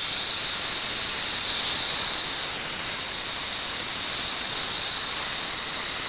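Nitrogen hissing steadily out of the open low side of a Testo 550 digital refrigerant manifold as it is purged of leftover refrigerant, to prevent cross-contamination between R22 and R410A systems.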